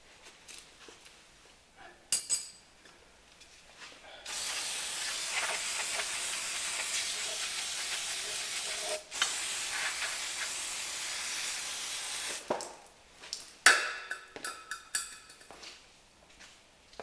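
Aerosol spray hissing in two long bursts, about five seconds and then about three seconds, with a few sharp metal clinks before and after.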